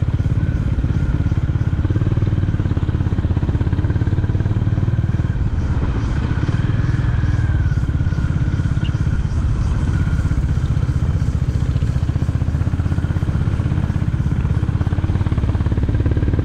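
Honda H'ness CB350's single-cylinder engine running steadily at low speed as the motorcycle is ridden along a dirt track.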